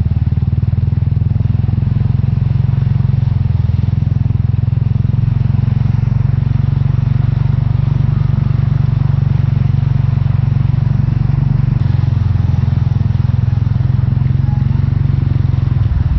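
KRY 200 dirt bike's engine running steadily at low speed as it wades through floodwater, with water washing and splashing off the front wheel.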